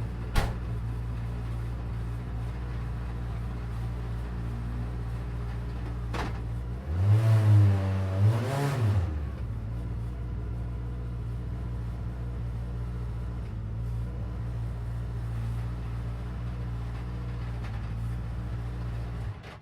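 Vauxhall Vectra Supertouring race car's 2.0-litre four-cylinder engine idling steadily, blipped twice in quick succession about seven seconds in, the revs rising and falling each time. A sharp click sounds just after the start.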